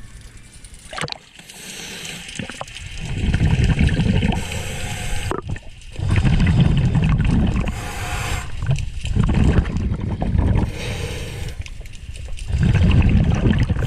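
A scuba diver breathing underwater through a regulator: a short hiss on each inhale and a loud bubbling burble of exhaust on each exhale, four breaths about three seconds apart.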